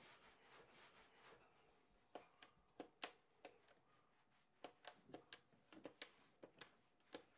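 A dozen or so faint, short clicks of keys being pressed on a corded desk telephone's keypad while a number is dialled, spaced unevenly, over near silence.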